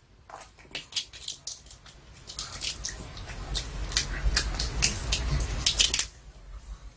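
Pomeranian gnawing and crunching a duck-wrapped cartilage bone chew: a run of crackly clicks and crunches. It gets busier and louder from about two seconds in and eases off near the end.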